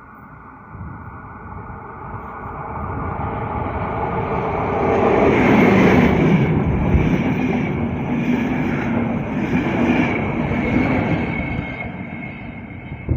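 Passenger train of blue-and-white coaches running past close by on the rails, growing louder as it approaches, loudest about six seconds in as the coaches pass, then slowly fading as it draws away.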